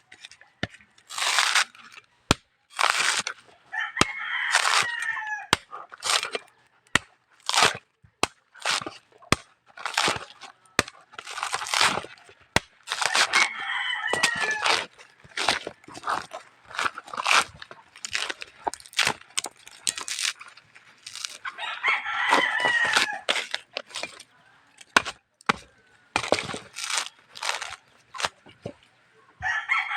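Many sharp cracks and knocks with rasping, scraping noises in between, from a ripe coconut being worked on. A rooster crows about four times in the background, roughly every nine seconds.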